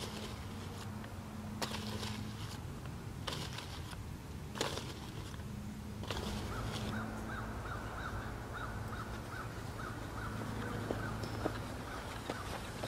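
Outdoor ambience over a steady low hum: a few short, harsh bird calls in the first half, then a quick run of repeated chirps, a little under three a second, through the second half.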